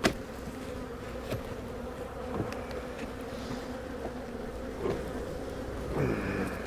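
Honey bees buzzing around an open hive in a steady, even hum. A sharp click comes right at the start, with a few lighter knocks after it, and about six seconds in a single bee's buzz swells and falls in pitch as it flies close by.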